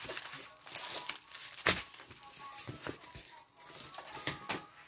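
Plastic packaging crinkling and a diamond painting canvas sheet rustling as the kit is handled and unfolded, with a sharp snap about a second and a half in.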